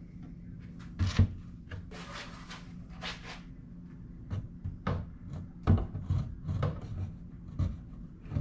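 Metal ball-bearing drawer slides rasping as they are pulled along, then a plywood drawer box knocking and bumping against the slides and its wooden frame as it is tried on them, several sharp knocks in quick succession. The drawer does not sit on the slides: there is too little side clearance for them.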